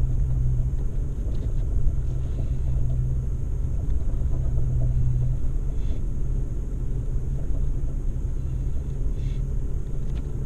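Off-road vehicle's engine running steadily while driving, a low drone over the rumble of the ride, easing slightly after about five seconds.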